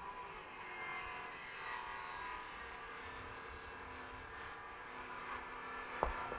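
A faint steady hum in the background, then a single sharp wooden knock about six seconds in as a log is set down hard on the chopping block.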